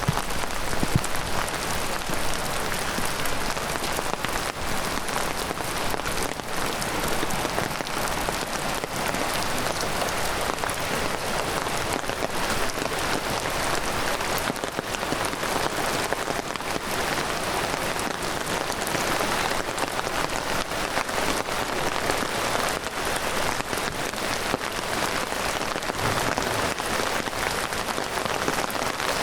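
Heavy rain pouring down in a dense, steady patter of countless drops.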